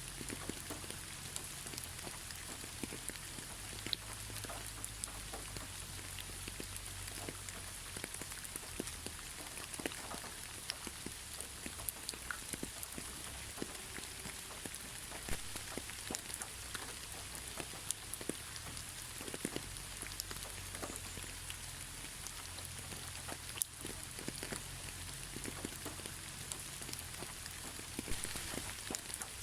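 Steady moderate rain, without thunder, falling on surfaces, with a constant hiss and many separate drops pattering and ticking close by.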